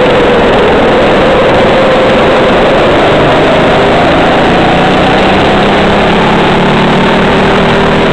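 Racing kart engine heard on board, loud. Its pitch is lowest at the start and climbs steadily as the kart accelerates out of a corner and down the straight.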